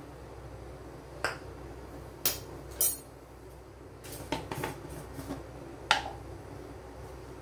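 About half a dozen sharp clinks and knocks of a spoon and bowls being handled on a kitchen counter as flour is tipped into a mixing bowl, then a jar is picked up, over a low steady hum.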